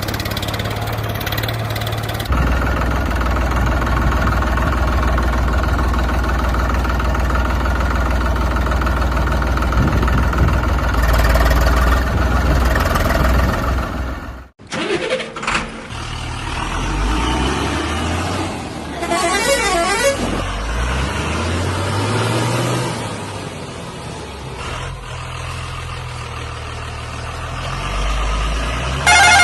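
Heavy diesel engines of a backhoe loader and tipper truck at work: first a steady running drone, then after an abrupt cut, engines revving up and down. A vehicle horn sounds at the very end.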